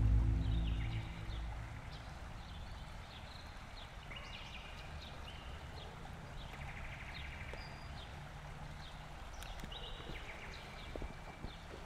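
Soft background music fading out over the first second or two, then quiet outdoor ambience: scattered small-bird chirps over a low steady rumble, with a few faint clicks near the end.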